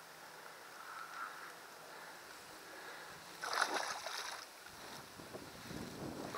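A hooked jack pike thrashing at the surface: a loud splash about three and a half seconds in, with more splashing starting near the end.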